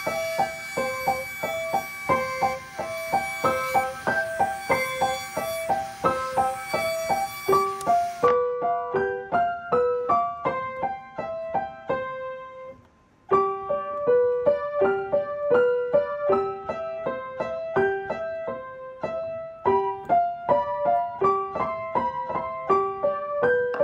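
Background piano music: a light melody of evenly paced single notes, which drops out for a moment about halfway through.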